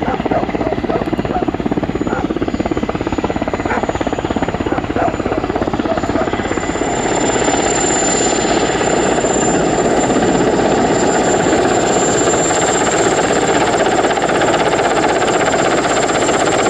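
Mi-8 twin-turbine helicopter flying in low on its approach to land: fast, steady main-rotor blade chop with a high, steady turbine whine over it. It grows louder about seven seconds in as the helicopter comes close, then holds level.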